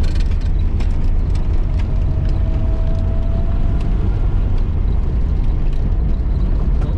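1972 Datsun 1600's four-cylinder engine running steadily under way, with road noise, heard from inside the cabin. A faint steady whine comes in about two seconds in.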